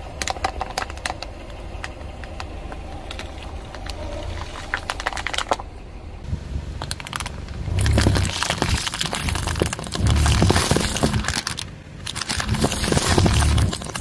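A car tyre slowly rolling over a plastic bottle packed with water beads, which crackles and pops as it gives way. About six seconds in it switches to the tyre crushing aluminium drink cans filled with water beads, with louder bursts of cracking and crunching as each can gives way.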